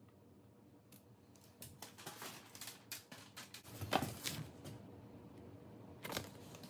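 Paper being handled: a printed manual and a card sheet rustling and crinkling in a run of short rustles, loudest about four seconds in and again near the end.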